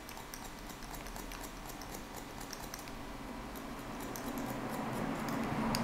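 Barber's scissors point-cutting (chipping) into the ends of a held section of hair: a quick run of light snips.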